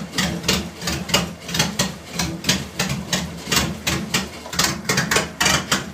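Alfa Romeo 164 Super's 12-valve V6 engine running out of the car on an engine hoist: a steady low hum under a loud, uneven clatter of a few beats a second.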